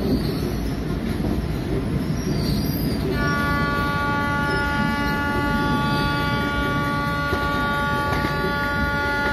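Running noise of a moving passenger train heard from its coach. About three seconds in, a locomotive horn starts and holds one steady chord of several tones without a break.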